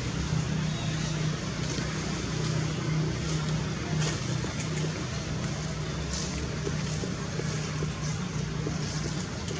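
A steady low motor hum under a constant hiss, unchanging throughout, with faint high ticks now and then.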